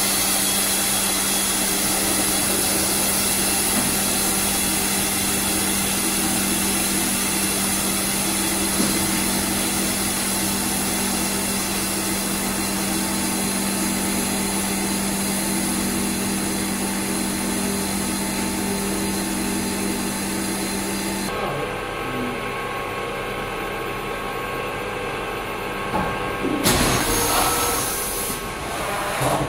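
A starch tableware forming press runs its hydraulic power unit with a steady machine hum and a constant tone. About two-thirds of the way in the hum changes and drops a little, and near the end there are a few seconds of louder noisy bursts as the press opens.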